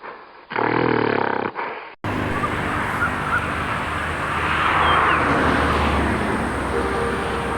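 An animal's call with a clear pitch, about a second long, then a sudden switch to a steady outdoor background of noise with a few faint short chirps.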